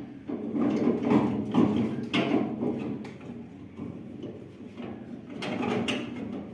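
Irregular metal knocks and scraping as combine harvester parts are handled and fitted, with sharper clanks about two seconds in and again near the end.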